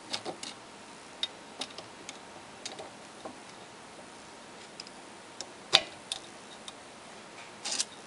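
Scattered light metallic clicks and ticks as the loosened socket-head screws are worked out of the drive-end plate of a WEG electric motor, with a sharper click a little under six seconds in and a short cluster of clicks near the end.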